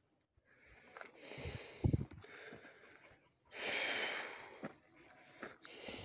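A hiker's heavy breathing while climbing: long, loud exhales about every two seconds, with a few low thuds of footsteps on the trail.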